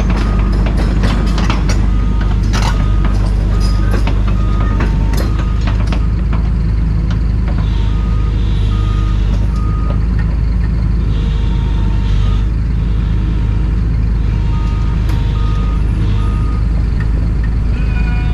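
Diesel engine of heavy machinery, likely the excavator, running steadily while a travel alarm beeps in several short spells. Sharp metallic clanks and knocks sound over the engine in the first six seconds.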